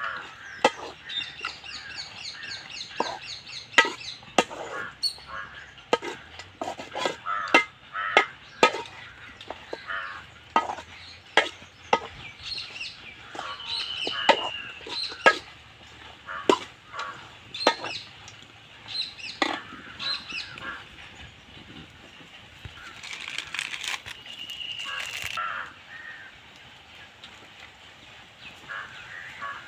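Metal ladle clinking and scraping against a steel cooking bowl as food is stirred over a wood fire, in sharp knocks about once or twice a second. Birds call in the background, with a couple of drawn-out calls midway and later on.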